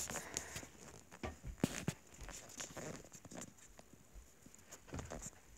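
Faint footsteps and scattered light knocks and rustles as someone moves about a room.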